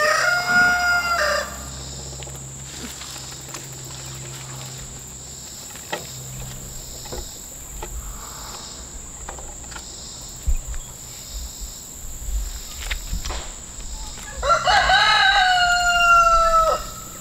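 A rooster crows twice: one crow trails off just after the start, and another, about two and a half seconds long, comes near the end. A steady high insect drone runs underneath, with faint clicks in between.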